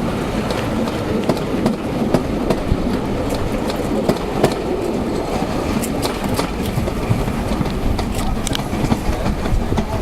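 Steam railway train running along the line: a steady rumble with irregular clicks and knocks from the wheels on the track.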